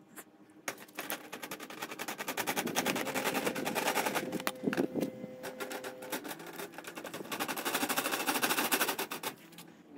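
Hand shock pump being worked to put air back into a RockShox Reverb dropper post's air chamber, refilling it after the fluid top-up so the post will return up: a fast, dense clatter with hiss that swells twice.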